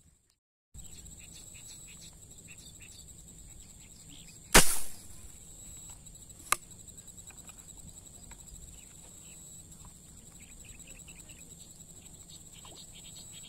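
A single loud sharp crack with a short tail about four and a half seconds in: a shot fired at small fish in the lake water. It is followed by a short sharp click about two seconds later, over faint chirping and a steady high whine.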